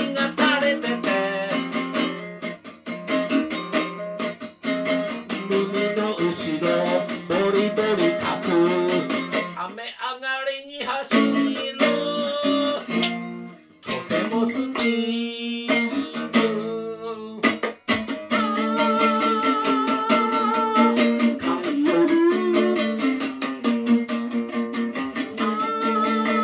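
Electric guitar strummed and picked in a solo song, with a man's voice singing along. About ten seconds in the playing slides in pitch and breaks off briefly a couple of times before the strumming resumes.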